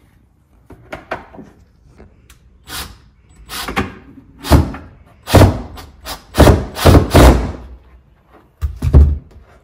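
Cordless impact driver driving screws up into the underside of a wooden cabinet, in a series of short bursts. The loudest bursts come from about four and a half seconds in onward and again near the end.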